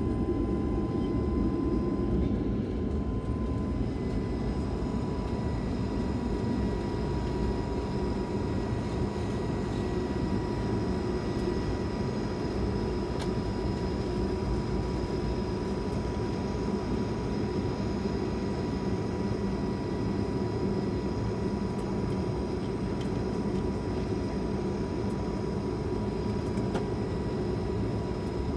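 Cabin noise of an Airbus A220-300 taxiing after landing: a steady rumble from its Pratt & Whitney PW1500G geared turbofans running at low power, with a thin steady whine above it that rises slightly in pitch a few seconds in.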